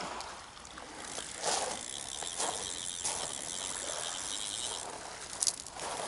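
Sea surf washing on a shingle or sand beach, a continuous noisy wash that swells briefly about one and a half seconds in and again near the end.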